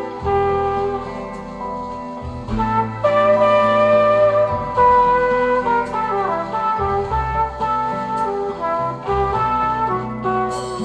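Instrumental jazz-style music with held melodic lines over a steady bass, played back through Fyne Audio F1-8 floorstanding loudspeakers and picked up by microphones in the room.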